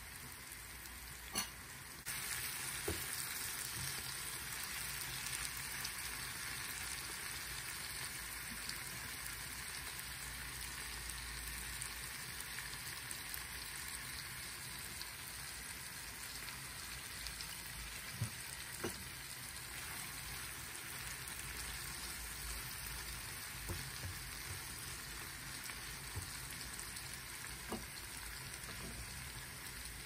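Sliced vegetables and tomatoes sizzling steadily in a nonstick frying pan, growing louder about two seconds in, with a few light clicks now and then.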